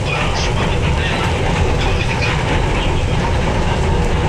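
Metro Manila MRT Line 3 train running steadily on its rails, heard from inside the passenger car as a continuous rumble.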